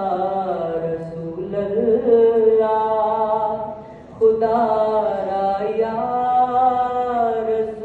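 Boys' voices chanting an Islamic devotional recitation in long held, slowly sliding notes, with a brief breath pause about four seconds in.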